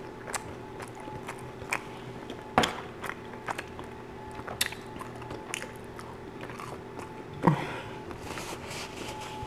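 A person chewing a mouthful of garlic knot bread with chicken and bacon: soft, wet mouth clicks and bites throughout, with two louder ones, a couple of seconds in and near the end.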